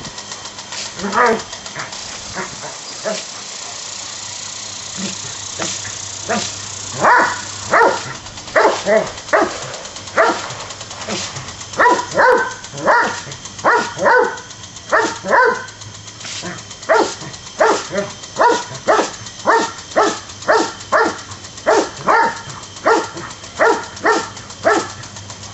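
Doberman barking: a single bark about a second in, then a long run of short, sharp barks about one a second.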